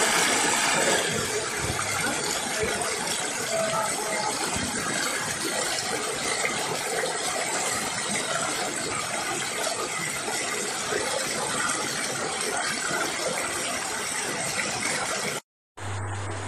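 Shallow rocky river running over stones, a steady rush of water, with a brief dropout near the end.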